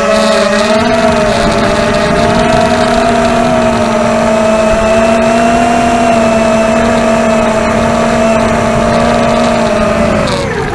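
ZMR250 racing quadcopter's DYS 2204 brushless motors and tri-blade propellers whining at a steady throttle. About ten seconds in, the pitch drops sharply as the throttle comes off, then wavers up and down.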